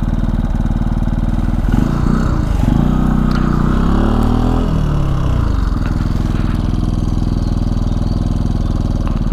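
Benelli TNT 125 motorcycle's small single-cylinder engine running steadily, its pitch rising and falling for a few seconds in the middle before settling back to a steady note.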